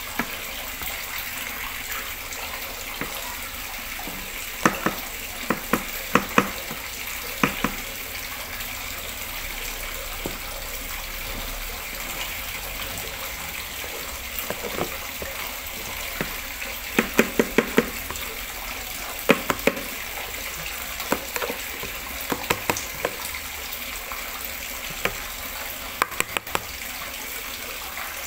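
A spatula knocking and scraping against a metal mixing bowl as thick cake batter is scraped out into a tube pan, heard as short clusters of sharp clicks over a steady hiss.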